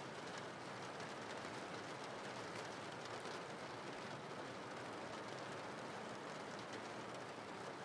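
Soft, steady rain falling: an even hiss of rain.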